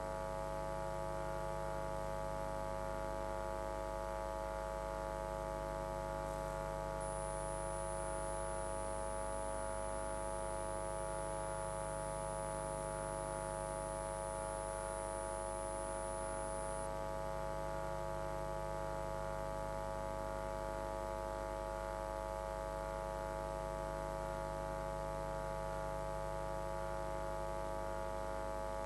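Steady electrical mains hum and buzz in the audio feed, a stack of unchanging tones with a slow waver low down. A faint high-pitched whine joins about a quarter of the way in and stops a little past halfway.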